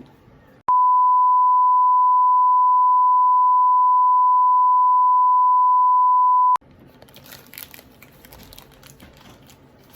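A single steady 1 kHz beep tone, the kind edited in to bleep something out. It starts abruptly just under a second in, holds for about six seconds and cuts off sharply. Faint handling clicks and rustles follow.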